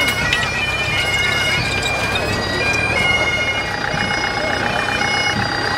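Highland bagpipes playing a tune, the melody stepping between notes over steady drones, with a tractor engine running low underneath.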